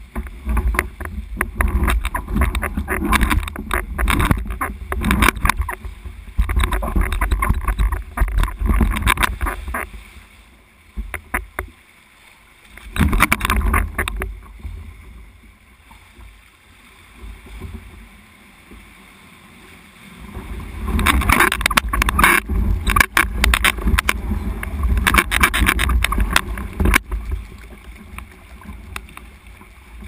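Sea water sloshing and slapping around a sea kayak and its deck-mounted camera, with a deep wind rumble on the microphone. It comes in loud, irregular spells and eases off for several seconds around the middle.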